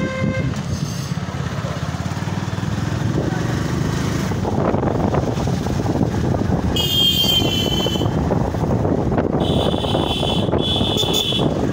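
Motorcycle riding along a road, its engine running steadily under a rush of wind noise. A high-pitched vehicle horn sounds once about seven seconds in, then twice in quick succession near the end.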